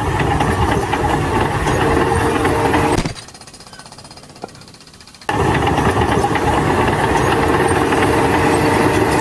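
Loud construction machinery running with a rapid, rattling hammering. It drops away for about two seconds a third of the way in, then starts again.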